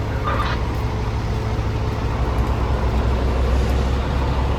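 Steady low rumble of idling heavy vehicles and street traffic on a city avenue, with a brief higher sound about half a second in.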